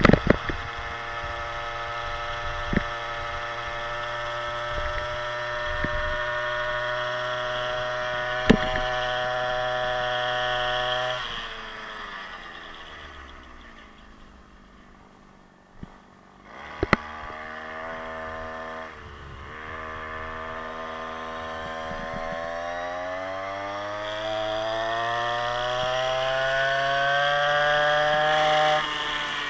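Small 52cc big-bore two-stroke engine of a motorized scooter running at steady high revs, then throttling off about eleven seconds in and dropping toward idle before revving back up, its pitch rising through the last part and falling again at the very end. A few sharp knocks cut through.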